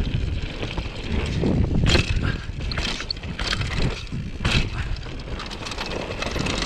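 Downhill mountain bike riding fast down a dirt trail: tyres rolling over the ground under a steady rush of noise, with short knocks and clatters as the bike hits bumps.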